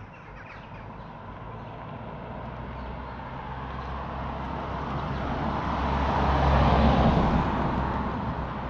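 A road vehicle passing by: engine hum and tyre noise growing louder to a peak about two-thirds of the way through, then fading.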